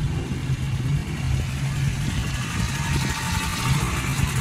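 Steady low hum of an engine idling, holding one even pitch.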